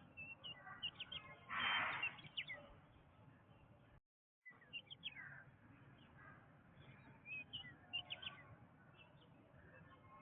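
Birds chirping and calling in a dense chorus of short, high chirps over a low background hiss. About a second and a half in there is a louder, rough burst lasting about half a second. A little after four seconds in, the sound cuts out completely for about half a second.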